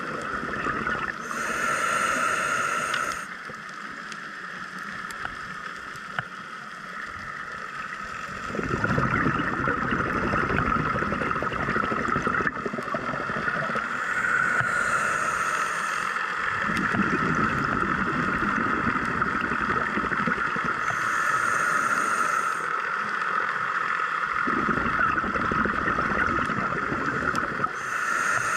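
Scuba diver breathing through a regulator underwater: a short hissing inhale every six or seven seconds, each followed by a longer low bubbling rush of exhaled air, over a steady underwater hum.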